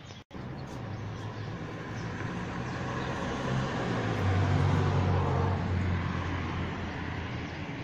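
A motor vehicle's engine running, a low steady hum that grows louder through the middle and eases off near the end.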